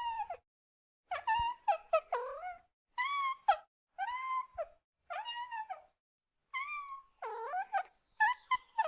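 Kitten meowing over and over: about ten short, high-pitched meows, roughly one a second and some in quick pairs, with silent gaps between them.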